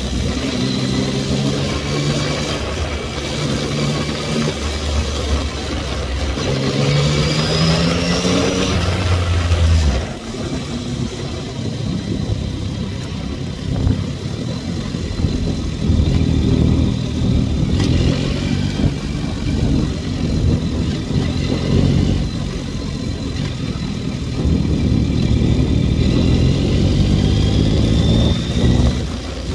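Yamaha MT-09's inline three-cylinder engine pulling under acceleration, its pitch climbing several times through the gears, with a sudden drop in level about ten seconds in. Wind noise on the helmet-mounted camera's microphone runs underneath.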